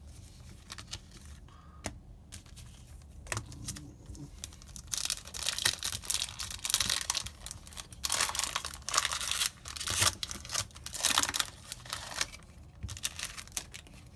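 Foil booster pack wrapper being torn open by hand and crinkled, in a run of loud crackling bursts from about five seconds in until about twelve seconds, after a few soft clicks.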